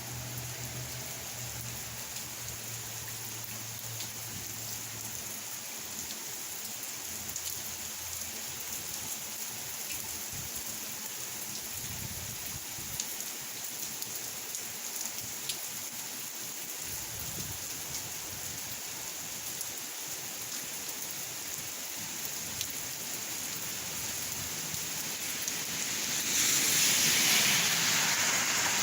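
Steady rain falling, with scattered drops ticking on a surface. Near the end it swells into a louder rushing hiss for a couple of seconds.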